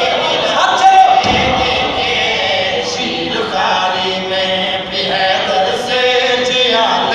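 A group of men chanting a devotional qasida together, many voices in unison with the crowd joining in. There is a heavy thump about a second in.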